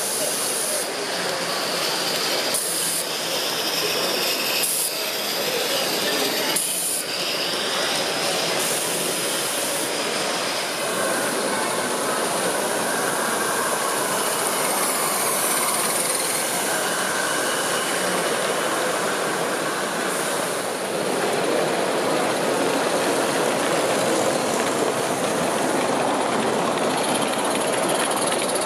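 Small-scale garden-railway model locomotives running on their track, with a steady rumble of wheels on rail and short bursts of hiss from live steam locomotives in the first third.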